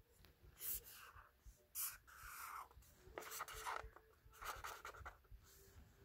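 Black felt-tip marker drawing on lined notebook paper: about half a dozen short, faint strokes as lines and dots are drawn.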